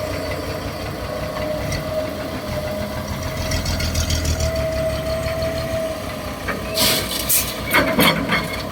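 Heavy diesel engine idling steadily, with a few sharp clatters near the end.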